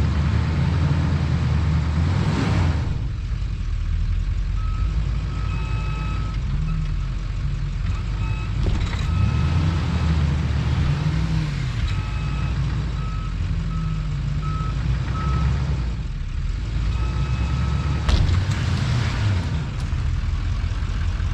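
A plow truck's engine revving up and down while it is stuck in deep snow, with a reversing alarm beeping in short repeated bursts through the middle.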